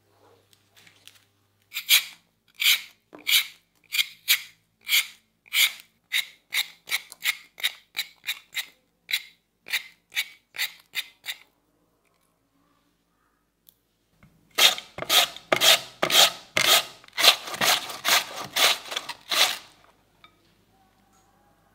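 Vegetable peeler scraping the skin off a raw potato in repeated strokes, at first under two a second and then quicker. After a pause there is a denser, faster run of scraping strokes as the potato is shredded into thin strips.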